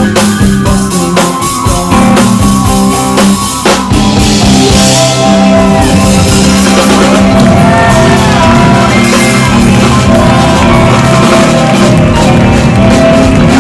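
Rock band playing live and loud: drum kit, electric guitar, keyboards and bass. Hard drum hits fill the first few seconds, then give way to held chords with notes that bend in pitch.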